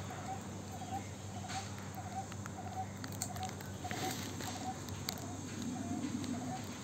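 A bird repeating one short note over and over, evenly about one and a half to two times a second, with a few scattered clicks and rustles about halfway through.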